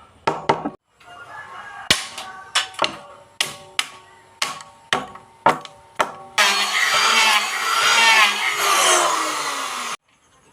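About a dozen sharp knocks at uneven intervals, like hammer blows on wood, each with a short ring. They are followed by a loud continuous noise lasting a few seconds that cuts off suddenly.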